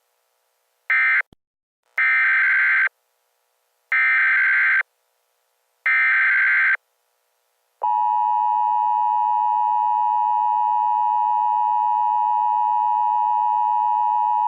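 Emergency Alert System signalling. The last of three short end-of-message data bursts comes about a second in. Three longer SAME header data bursts follow, about two seconds apart. Then the steady EAS attention tone starts about eight seconds in, marking the start of a new alert.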